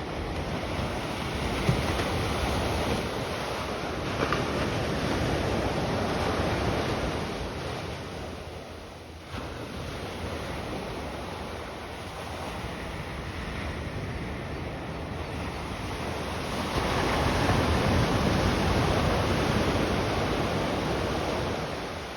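Ocean surf breaking and washing in, rising and falling in slow swells, with wind buffeting the microphone.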